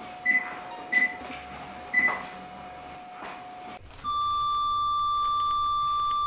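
Fotek ONYX electrosurgical generator: three short beeps as its touchscreen settings are tapped, then, about four seconds in, a steady high tone that sounds while bipolar coagulation output is activated through the bipolar scissors.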